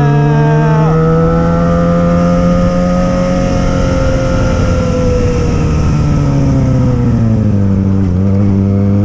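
Yamaha XJ6 motorcycle's 600 cc inline-four engine running loud at a held rev, its pitch rising slightly and then easing down. There is a brief dip near the end before it steadies again.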